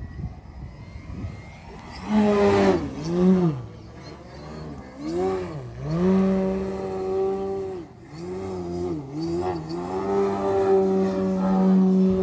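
Electric RC aerobatic plane's Dualsky GA8000 motor driving a 28x12 propeller in flight: a loud buzzing drone comes in about two seconds in, its pitch repeatedly dropping and climbing with the throttle, then holding steady near the end.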